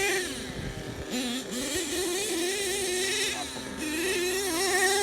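Small nitro engine of an HPI Savage 3-speed RC monster truck running, its pitch wavering up and down with small throttle changes.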